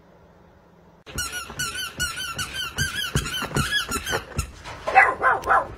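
A rapid run of high-pitched squeaks, about five a second, starting about a second in, with small clicks among them, then three louder squeaks that fall in pitch near the end.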